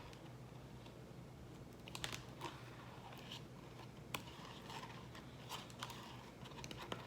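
Irregular small sticky clicks and crackles of a homemade corn-syrup slime being handled, starting about two seconds in, with a few louder snaps.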